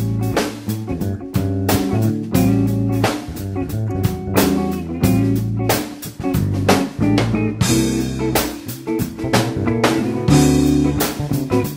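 Background music with guitar and drums keeping a steady beat.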